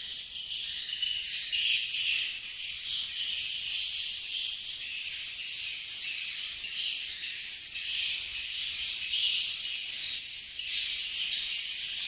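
Swiftlets' dense, high-pitched chirping and twittering, with a thin steady high tone running through it that fades about two-thirds of the way through.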